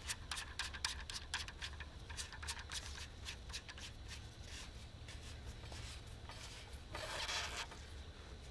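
Hands handling and adjusting a carp spinning reel on its rod. A run of light, irregular clicks comes several a second for the first four seconds or so, then a brief rustle about seven seconds in.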